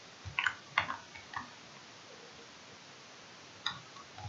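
Keystrokes on a computer keyboard: a quick run of clicks in the first second and a half, a pause, then two more near the end.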